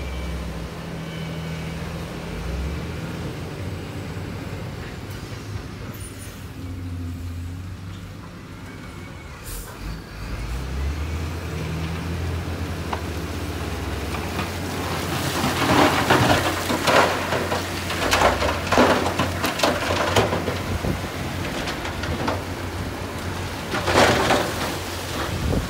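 Diesel engine of heavy earth-moving machinery running with a steady low hum, its note rising about ten seconds in. From about fifteen seconds in, a run of loud, harsh scraping bursts comes over it.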